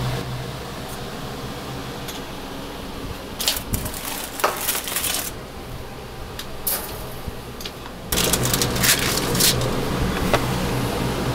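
Aluminium foil crinkling in several bursts as it is handled, the loudest cluster about eight seconds in, over a steady hum of kitchen ventilation that grows louder at about that point.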